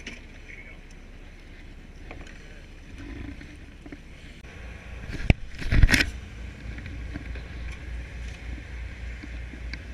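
Steady low rumble of a fishing boat at sea, pulsing evenly in the second half, with a sharp click about five seconds in and a louder thump just after it, likely from fishing gear or the camera knocking against something on deck.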